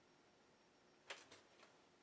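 Near silence with three faint clicks a little past halfway, the first the loudest, from hands handling a tube over the brake control module.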